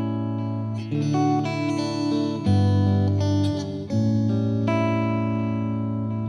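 Slow instrumental music of plucked-string chords, each chord held and giving way to the next every second or so.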